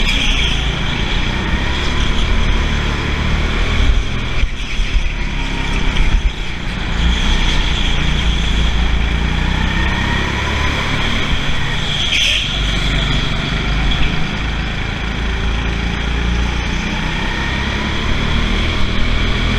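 Go-kart motor running at speed, its pitch rising and falling through the corners, over steady rumble and rushing noise.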